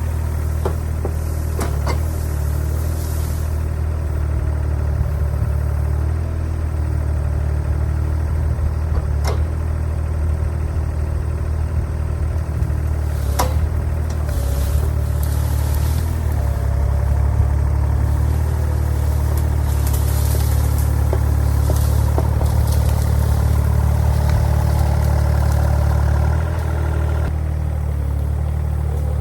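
Farm tractor engine running steadily while working brush, with a few sharp knocks and clanks along the way. The engine note eases off slightly near the end.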